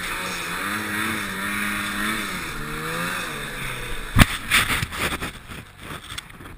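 1984 Yamaha Enticer snowmobile's two-stroke engine running in deep powder, its note wavering up and down, then sinking in pitch. About four seconds in, a sudden heavy thump as the sled goes over, followed by snow crunching and rustling against the camera.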